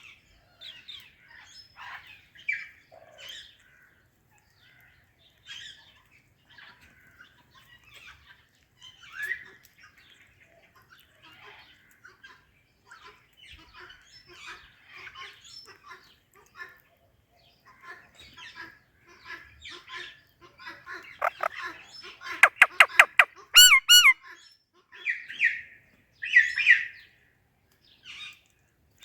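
Pet parakeets (an Indian ringneck and an alexandrine) calling back and forth with short chirps and squawks, soft and scattered at first. Later comes a quick run of sharp clicky notes, then louder squawks.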